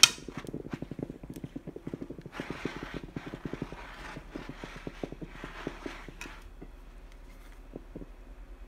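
Handheld garment steamer running, its pump giving a rapid clicking pulse, with hissing strokes as the steamer head is drawn over the shirt fabric. It opens with a sharp click, and the strokes stop after about six seconds while the pulsing goes on more faintly.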